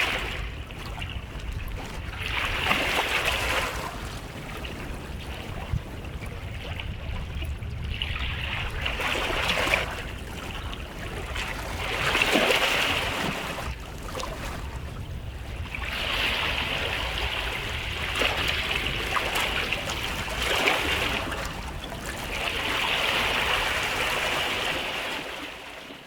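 Small waves washing onto a beach, the hiss of surf swelling and falling back every few seconds, over a steady low rumble. It fades out at the very end.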